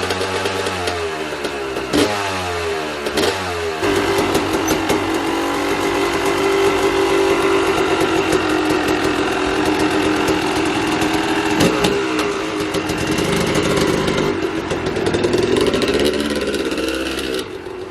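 Freshly rebuilt Yamaha YZ two-stroke dirt bike engine with a 295 cc Eric Gorr big-bore kit, running and being revved. The revs fall away several times in the first few seconds, then it runs more steadily with small rises and falls, dropping off near the end.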